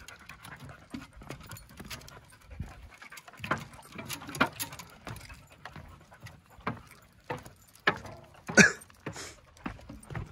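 Irregular footsteps knocking on wooden boardwalk steps as a person and a yellow Labrador retriever walk, with the dog panting. One knock about three-quarters of the way through is much louder than the rest.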